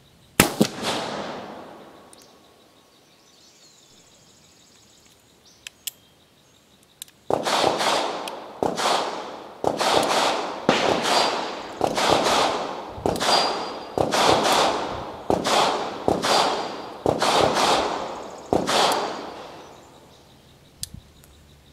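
Uberti Walker .44 cap-and-ball revolver firing one shot: a sharp report with an echo trailing off over about two seconds. From about seven seconds in comes a long string of sharp reports, about two a second, each trailing off, that lasts some twelve seconds.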